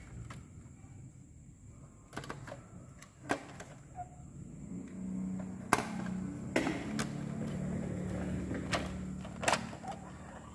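Hard plastic clicks and knocks as Playmobil toy vehicles are handled, with a rear door of the toy fire SUV swung open and the dump truck's tipper bed lifted. A low steady hum runs underneath from about five seconds in until near the end.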